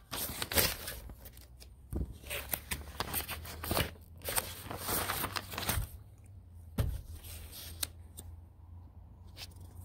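Paper pages of a printed catalog being turned and handled: irregular rustles and crinkles that thin out in the last few seconds.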